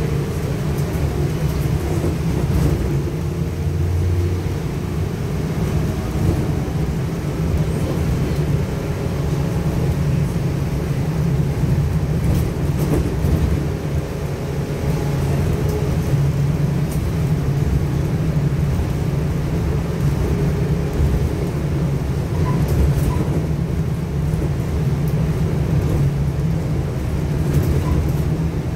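Trolza-5265.00 Megapolis trolleybus under way, heard from the passenger cabin: a steady low rumble of the moving vehicle.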